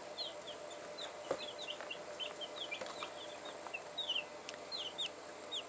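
Two-week-old baby chicks peeping: short, high, downward-slurred peeps, a few a second at an irregular pace, faint.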